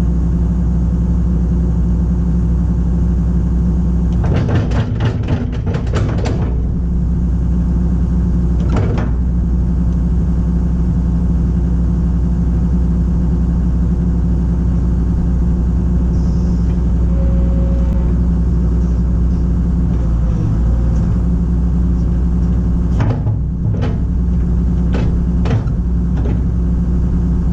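Kobelco SK250 LC excavator's diesel engine running steadily at idle, with sharp knocks from the bucket pin and linkage: a cluster about four seconds in, a single knock a few seconds later, and another cluster near the end.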